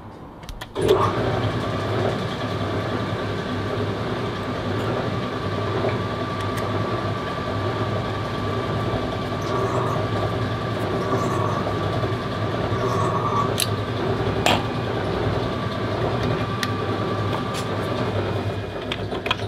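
Rebuilt Denso alternator from a 2012–2013 Toyota Corolla 1.8L being spun on a test bench. The bench starts abruptly about a second in and runs steadily with a constant whine and hum, with a couple of sharp clicks partway through, then winds down near the end.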